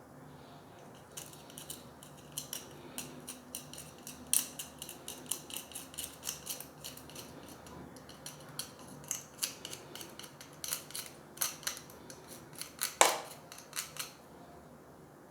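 Small brush scrubbing salt deposits off a plastic tap aerator filter: quick, scratchy strokes coming irregularly several a second, with one louder stroke near the end.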